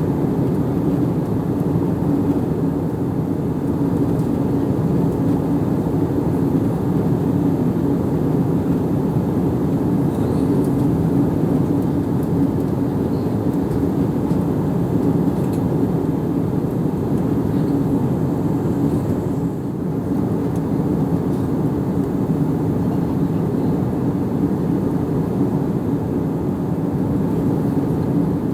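Airplane cabin ambience: a steady low drone of engine and air noise heard from inside the plane, with a brief slight dip in level about two-thirds through.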